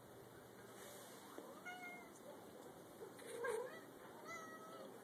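A domestic cat meowing softly: three short meows, the middle one, about three and a half seconds in, the loudest.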